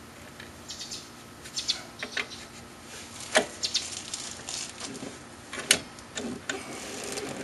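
Light metal clicks, taps and scraping as rear drum brake shoes and the automatic adjuster are pushed back into place on the backing plate, with two sharper clicks, one near the middle and one about two-thirds through.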